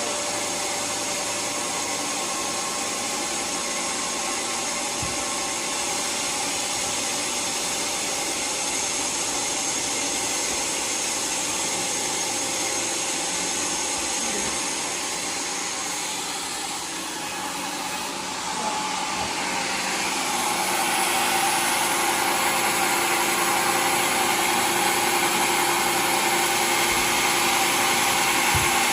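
Homemade sawmill running steadily with a constant machine hum; about two-thirds of the way through it dips briefly, then grows louder and harsher.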